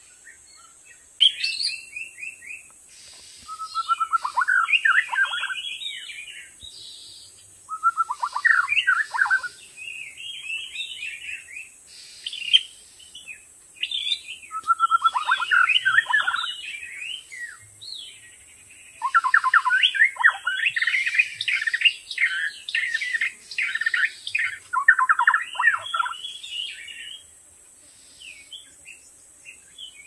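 White-rumped shama singing: phrase after phrase of rich, varied whistles and rapid trills, with short pauses between them, starting about a second in and stopping near the end.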